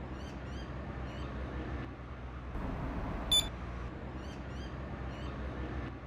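A single short, high electronic beep about three seconds in, from the Bosch alarm keypad acknowledging the remote control. No beep comes from the outside siren, whose speaker beep volume is set to 0. Faint bird chirps sound throughout.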